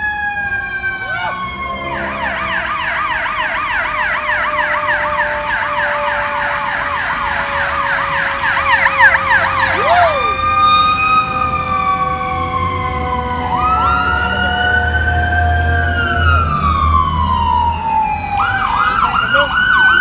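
Emergency vehicle sirens: a slow wail falling in pitch, joined from about two seconds in by a second siren's fast yelp that stops about halfway through. Near the end the wail rises and falls again and breaks into short yelps.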